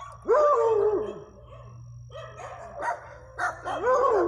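Dogs barking and howling: two long, wavering howls of about a second each, with shorter barks between them. The dogs are set off by other dogs in front of the house.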